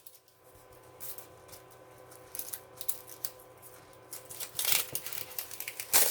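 Intermittent rustling and crinkling of the plastic wrapper around a rolled canvas as it is handled, with a louder rustle near the end.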